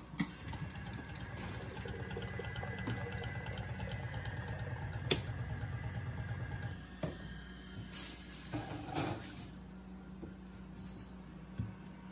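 Weighing filling machine pumping salad dressing into a bottle, a fast, even pulsing hum with liquid running in, which stops about seven seconds in once the preset weight is reached. A brief rushing noise follows about a second later.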